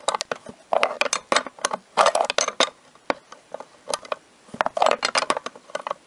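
Small metal clicks and clinks in quick clusters as a hex nut is turned off the threaded lamp nipple by hand inside a Corvette C5 mirror base, the nut and fittings knocking against the metal pedestal.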